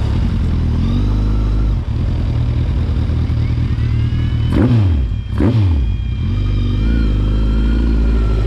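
Kawasaki Z1000 inline-four engine in a converted Yamaha Raptor 700 quad running at low speed, with two quick throttle blips about halfway through.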